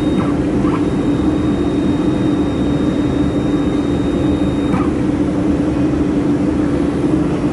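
Steady running hum of a mould repair laser welding machine and its cooling equipment, with a low drone and a faint high whine that cuts off about five seconds in.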